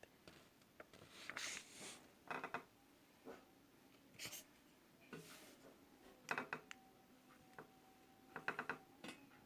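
Pen writing on paper, faint: short scratchy strokes and small taps, with a quick flurry of strokes about six seconds in and again near the end.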